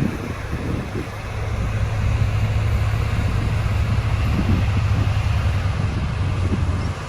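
Motor grader's diesel engine running steadily with a low hum.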